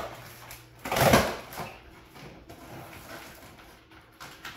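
Packing tape on a cardboard shipping box being cut and pulled open: one short, loud scrape about a second in, then faint rustling and small clicks of cardboard being handled. The boxes are heavily taped and hard to open.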